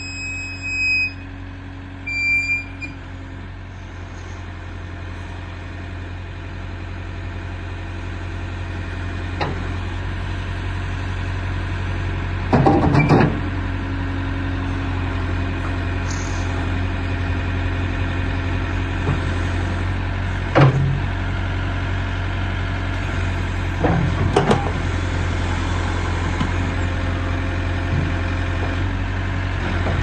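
JCB 3CX backhoe loader's diesel engine running steadily while the backhoe arm is worked on the hydraulics, the engine note building gradually over the first dozen seconds. A few short, sharp knocks from the arm come about a third of the way in, two-thirds of the way in and shortly after.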